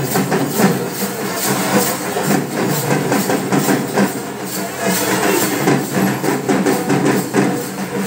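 Procession music: drums and cymbals struck in a steady beat over sustained instrument tones.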